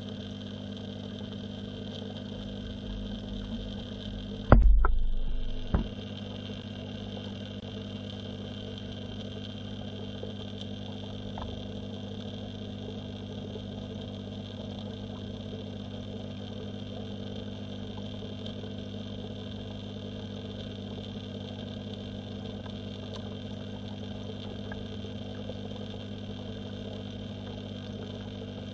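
Steady electric hum of a submerged pond pump, heard underwater through a camera's waterproof housing. About four and a half seconds in, a loud knock with a low rumble dies away over about a second, and a smaller knock follows.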